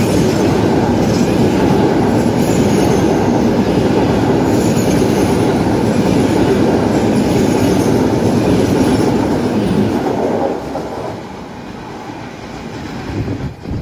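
Frecciabianca passenger train running through the station without stopping: a loud, steady rumble of coaches and wheels on the rails. It eases off about ten seconds in as the last coaches go by.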